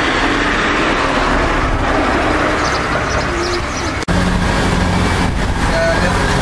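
Steady outdoor vehicle and engine noise. About four seconds in, it breaks off for an instant at a cut and gives way to the steady low hum of a truck engine idling.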